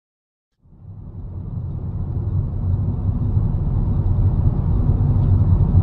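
Low, steady rumble of a moving car's engine and road noise heard from inside the cabin. It fades in about half a second in and grows steadily louder.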